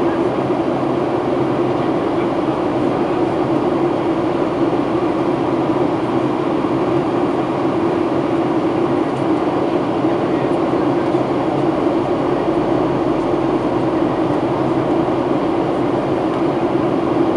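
Steady cabin noise inside a Boeing 737-800 during descent: an unbroken drone of engines and air rushing past the fuselage, with a constant low hum.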